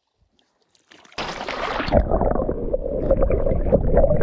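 Near silence, then about a second in, close sloshing and gurgling of lake water starts suddenly and carries on steadily, with small splashes.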